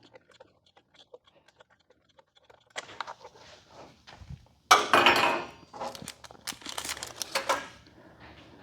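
Small plastic parts bag crinkling and rustling as it is handled with bolts going into it, loudest about five seconds in, with light clicks of small metal parts.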